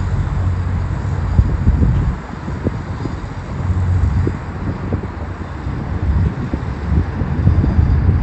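Low road rumble from a moving car, with wind buffeting the microphone, swelling and dipping unevenly.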